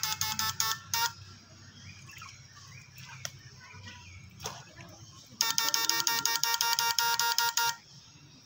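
Homemade six-transistor electric fish shocker buzzing in rapid pulses, about ten a second, while it is switched on to stun fish. It cuts off about a second in and comes back from about five and a half seconds to nearly eight.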